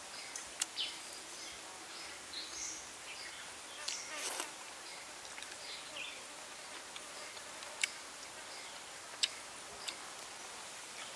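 Forest ambience: a steady insect drone with scattered short bird chirps. A few sharp clicks stand out, the loudest two in the second half.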